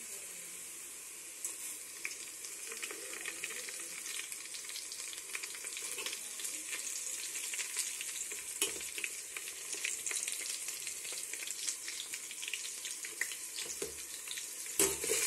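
Whole spices and green chillies sizzling and crackling in hot oil with browned fried onions, stirred with a slotted metal spoon in a metal pot. The sizzle grows louder just before the end.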